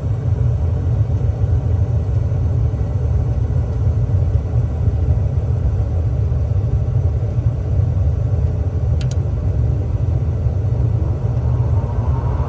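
A steady, loud low mechanical rumble, with a single brief click about nine seconds in and a hiss building near the end.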